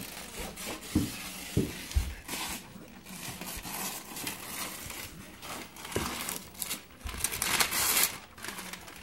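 Wrapping paper being torn and crumpled off a large gift box by a small child's hands, in a series of ripping, rustling bursts, the loudest near the end. A few dull knocks come in the first two seconds.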